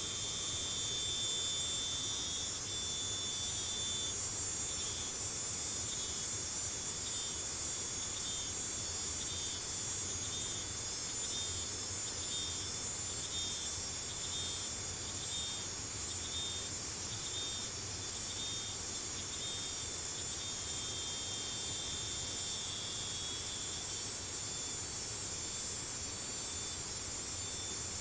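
Insects calling: a steady, high-pitched buzzing chorus, with a thinner high call pulsing about once a second through most of it.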